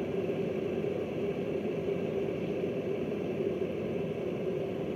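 Electric kettle heating water close to the boil: a steady rushing noise with a steady low hum.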